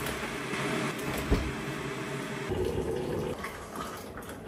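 Hot water poured from a kettle into a mug, a steady splashing fill, with a single low knock about a second in.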